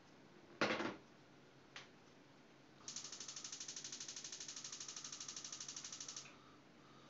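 A sharp knock about half a second in as the electric kettle is set down on the counter, with a lighter tap a second later. Then a gas hob's spark igniter clicks rapidly and evenly for about three seconds and stops once the burner lights.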